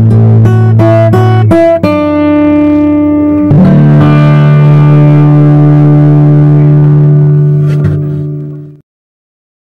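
Background music: a run of quick plucked notes, then held chords that fade out about nine seconds in.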